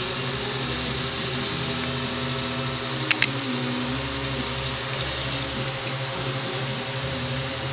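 Steady mechanical hum, with a couple of sharp crunching clicks about three seconds in as schnauzer puppies eat dry kibble from a bowl.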